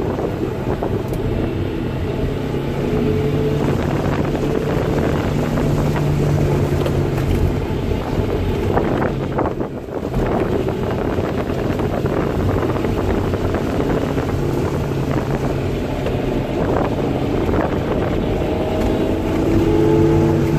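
Honda S2000's F22C 2.2-litre four-cylinder engine, fitted with an aftermarket intake and header, pulling hard on track as heard inside the cabin, with wind and tyre noise over it. The engine note dips briefly about ten seconds in, as at a lift or gear change.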